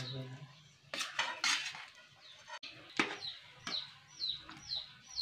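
A few sharp metal clinks of kitchen utensils against steel cookware, then, from about three and a half seconds in, a bird calling over and over with short high falling chirps, about two a second.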